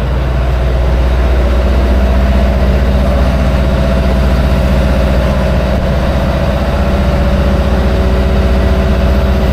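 Idling bus engine, a loud steady low hum that holds even throughout.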